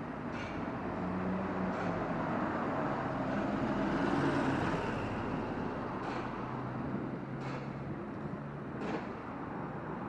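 Roadside traffic dominated by a city bus's diesel engine running as it moves off past the bus stop, swelling in loudness about halfway through. Faint regular footsteps, about one every second and a half.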